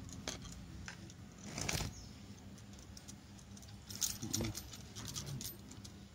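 Soft rustles and small clicks of hands pressing and patting potting soil around a plant in a plastic pot, with bangles clinking now and then. The loudest is a brief scraping rustle about a second and a half in.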